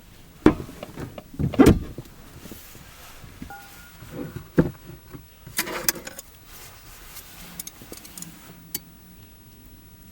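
A few irregular knocks and clatters, the loudest cluster about a second and a half in, with quieter taps between.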